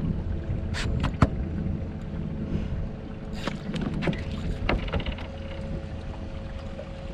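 A small boat's motor running steadily with a low hum, under wind on the microphone, with scattered clicks and knocks and one sharp knock about a second in.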